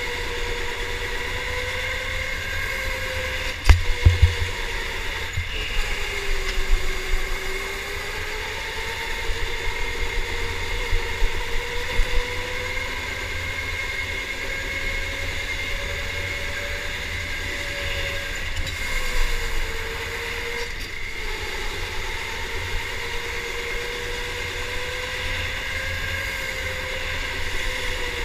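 Electric go-kart motor whining steadily, its pitch dipping and rising as the kart slows and speeds up through the corners, over a low rumble. A sharp knock about four seconds in is the loudest sound, with a few lighter knocks later.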